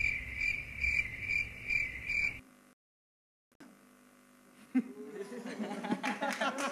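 Cricket-chirping sound effect, the comedy gag for an awkward silence after a joke, with even chirps about three a second that cut off abruptly about two and a half seconds in. Dead silence follows for about two seconds, then faint voices return.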